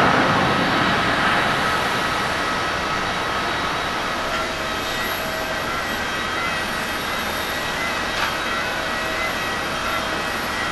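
Jet airliner engine noise: an Airbus A330-300 rolling along the runway, loud at first and fading over the first few seconds, then the steadier hum and whine of a Boeing 767-300(ER)'s engines on final approach.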